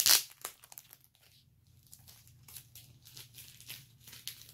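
Comic book mailing packaging being handled and pulled open by hand: a loud sharp rip or crinkle at the start, then scattered lighter crinkles and rustles.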